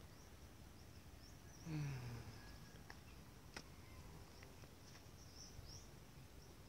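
Quiet outdoor ambience near silence: faint high chirps and a few soft clicks over a low hiss, with one brief low falling hum about two seconds in.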